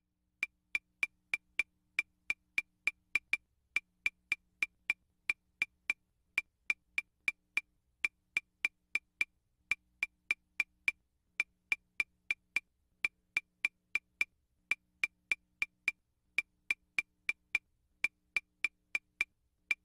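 Background music of evenly spaced wood-block clicks, about three a second, in short runs with brief pauses.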